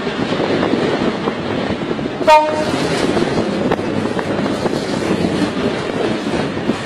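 Steady rough rumble of wind and engine noise, broken about two seconds in by one short, loud horn toot.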